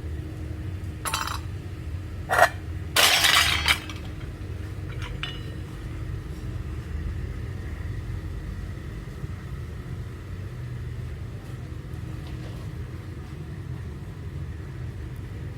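Steady low rumble of factory machinery, broken by a few sharp metal clinks about a second in and a short, louder clatter of metal pieces about three seconds in.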